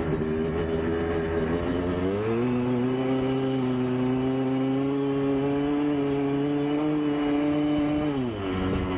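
1999 Kawasaki KX250's single-cylinder two-stroke engine running. About two seconds in it revs up and holds steady at higher revs, then drops back near the end.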